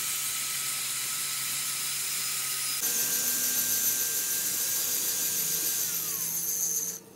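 Electric angle grinder with an abrasive disc grinding steel: a steady high whine over a hissing grind. It gets louder about three seconds in, the whine drops in pitch near the end, and the sound cuts off suddenly.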